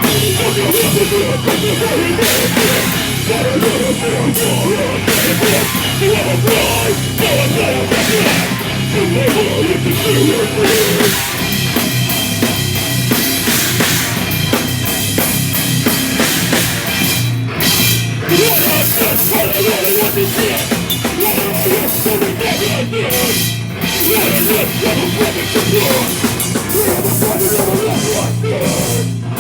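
A live heavy rock band playing loud, with a pounding drum kit under distorted guitars and bass; the highs drop out for a moment a few times in the second half.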